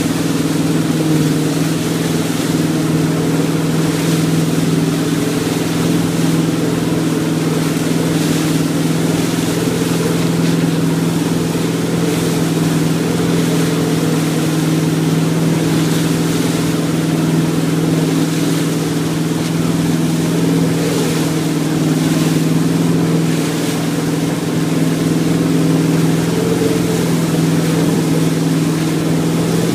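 Motorboat engine running steadily under way, with the rushing hiss of churning wake water.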